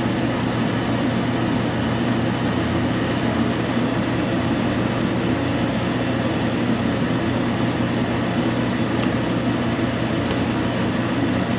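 Steady background machine drone in a garage: an even, unchanging hum with a constant low tone and no breaks.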